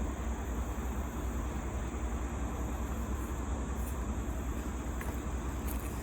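Steady low rumble with an even hiss.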